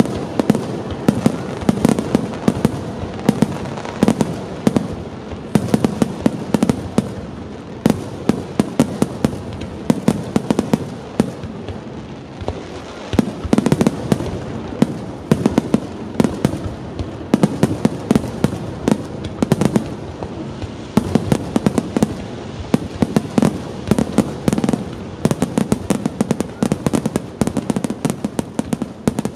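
Aerial fireworks bursting in a dense rapid-fire barrage: many bangs and pops a second, overlapping with no let-up.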